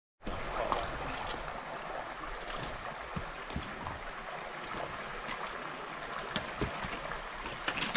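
River water flowing steadily, with scattered knocks and crunches of footsteps on rocks.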